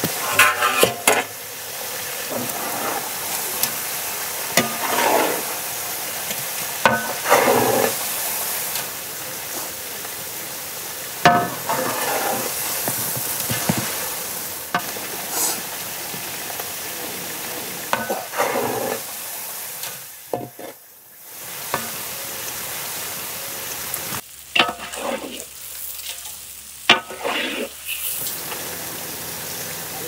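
Quails deep-frying in hot oil in a large metal pan, a steady sizzle, with a metal slotted ladle scraping and knocking against the pan every few seconds as the birds are stirred.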